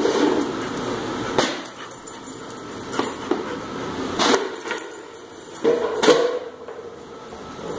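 A dog whining during play, with a short held whine near the end. Three sharp knocks sound in between.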